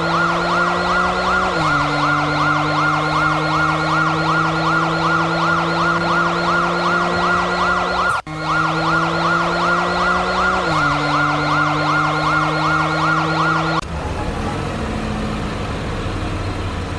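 Toy police car's electronic siren sounding a fast warbling wail over a steady electronic tone, looping with a sudden restart partway through. It breaks off about fourteen seconds in, leaving quieter noise, and starts again near the end.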